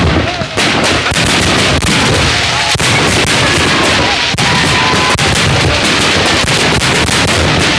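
Fireworks going off in rapid succession: a dense barrage of bangs and crackles, with a few short whistling tones over them.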